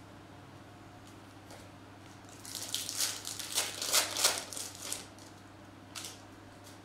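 Foil trading-card pack wrapper being torn open and crinkled: a run of sharp crackles lasting about two and a half seconds from a couple of seconds in, then one more brief crinkle.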